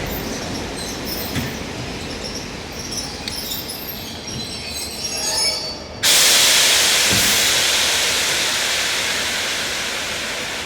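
A train pulling in at a station platform, its wheels and brakes squealing in short high tones over a low rumble. About six seconds in comes a sudden loud hiss of released air that slowly fades, as when a train's air brakes vent on stopping.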